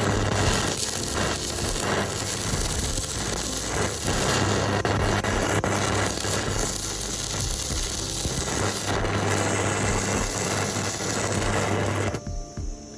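Metalworking noise from a power tool: dense hissing and crackling over a steady electric hum that comes and goes, stopping suddenly about twelve seconds in.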